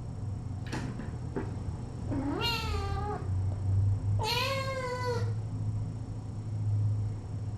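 A cat meowing twice, two drawn-out meows about a second each, the first rising in pitch before it holds.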